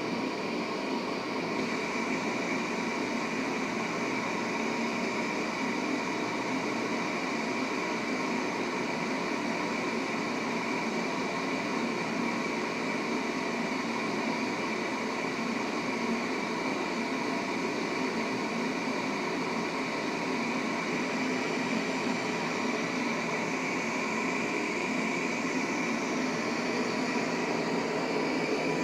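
Mathewson Metals KnifeSmith propane forge burner running steadily at heat: an even rushing noise of gas and flame with a faint steady high tone on top.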